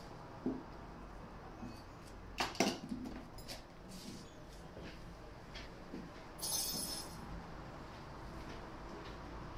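Faint clicks and clinks of metal dental hand instruments at work in a mouth, loudest as two sharp clicks about two and a half seconds in. A brief high hiss follows about six and a half seconds in.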